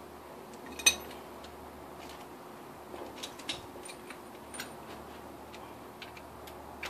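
Metal hand tools clinking: one sharp clank about a second in, then scattered light metallic clicks as a wrench is fitted to bolts on the engine's lower block.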